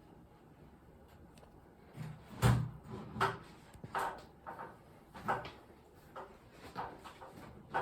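Irregular knocks and clatter, like things being handled or set down, starting about two seconds in. The loudest knock comes about half a second later, and several more follow at uneven gaps.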